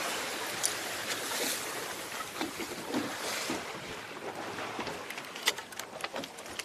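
Wind and rushing water on a moving boat at sea: a steady noisy wash of wind on the microphone and water along the hull. A few sharp light clicks come near the end.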